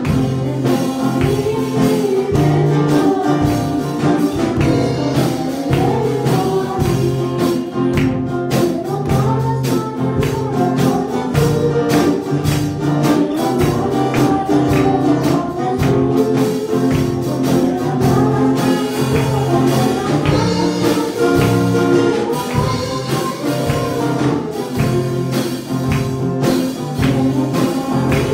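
Spanish-language gospel song: a solo voice singing over a backing track with percussion and tambourine.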